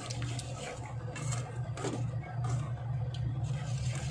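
Plastic slotted turner stirring and scraping through a cream sauce in a metal pan, in short irregular strokes, over a steady low hum.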